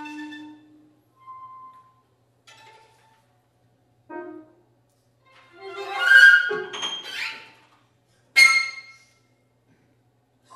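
Contemporary chamber music for flute, clarinet, violin and piano, played in short scattered gestures separated by silences. A held note fades out about a second in, soft fragments follow, then a loud dense cluster with sliding pitches around six seconds in and a single sharp accent just after eight seconds, followed by about two seconds of silence.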